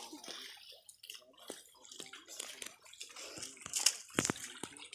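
River water sloshing and dripping as a large bamboo-framed fishing net is swept through it by wading men, with irregular small splashes and a few sharper, louder splashes about four seconds in.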